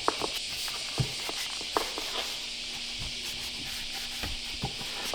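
A cloth rag, an old sock, rubbing plant-based oil into the wood of a stool: a steady rubbing hiss, with a few light knocks in the first couple of seconds.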